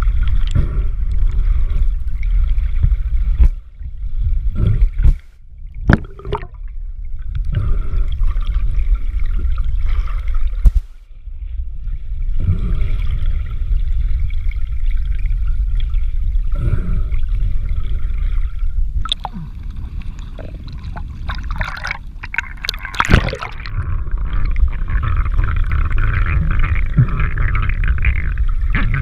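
Muffled underwater water noise heard through a GoPro's waterproof housing as a snorkeler swims: a steady low rush of moving water, with a few sudden knocks and gurgles and brief drops in level.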